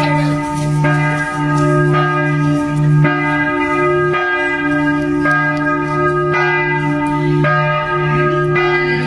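Bells ringing in an even rhythm, a stroke about every second, each tone held and overlapping the next.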